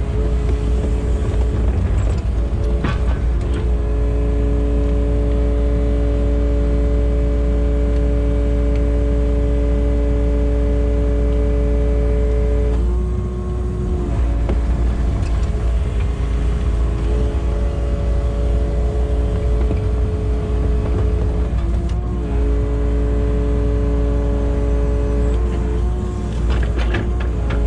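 Kubota KX080 excavator's diesel engine running at working revs with a steady hydraulic whine and heavy low rumble. The pitch dips briefly several times, about halfway through and twice near the end, as the machine's hydraulics take load.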